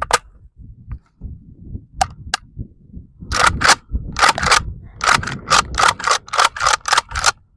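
Pistol shots: a single shot at the start, two quick shots about two seconds in, then a fast string of a dozen or more shots from about three seconds in, coming at roughly four a second.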